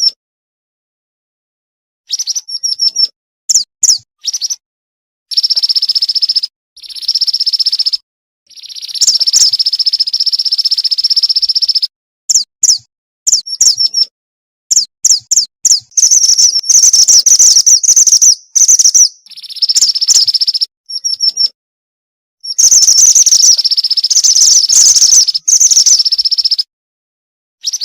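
Female mantenan gunung bird calling: loud, high, rapid chirps and trills in repeated bursts of a second to several seconds, with abrupt silent gaps between them, a lure call used to draw in males.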